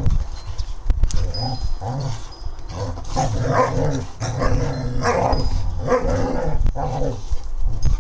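Young dogs (a Doberman, a Dogue de Bordeaux and a Central Asian Shepherd) growling in a rough play fight, with low growls coming again and again.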